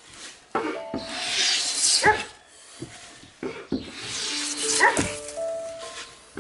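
Wooden hand plane pushed in two long strokes along a timber beam, each stroke a hiss of the blade lifting a curled shaving. Each stroke ends in a short pitched cry that rises and falls, and a few steady musical notes sound between the strokes.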